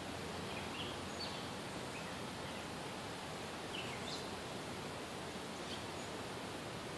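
Steady outdoor background hiss, with a handful of faint, short, high chirps scattered through it.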